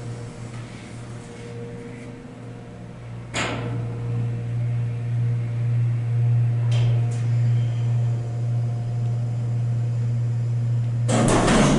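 1989 Dover hydraulic freight elevator running, its pump motor humming steadily. The hum grows louder after a click about three seconds in, two more clicks come around seven seconds, and a loud burst of noise starts near the end.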